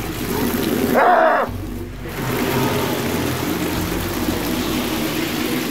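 Water running from an outdoor tap and splashing onto a head and a wooden board, with rain falling; a short, louder sound about a second in.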